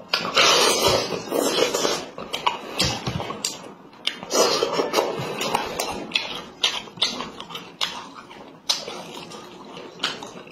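Close-up eating sounds of a man chewing boiled chicken torn apart by hand: rapid wet mouth smacks and clicks, with two longer noisy stretches of chewing, about a second in and again around four seconds in.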